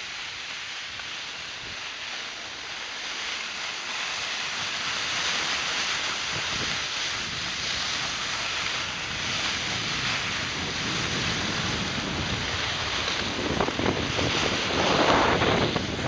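Wind rushing over the microphone mixed with the hiss of cross-country skis sliding on packed snow, growing louder as the skier gathers speed downhill, with heavier gusts near the end.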